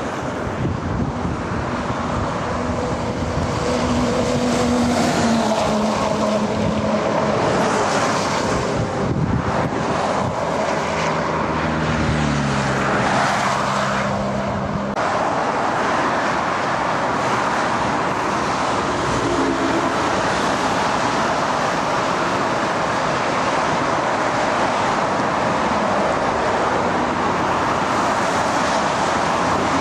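Diesel engines of MAN military logistic trucks passing, the engine note falling in steps as they go by, over steady tyre noise. From about halfway, a steady rush of busy road traffic.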